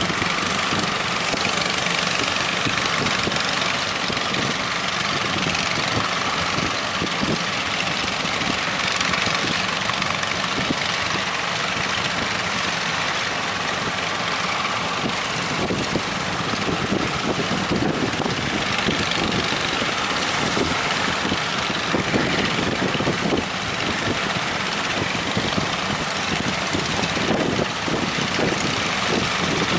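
Fishing boat engine running steadily, with wind buffeting the microphone in the second half.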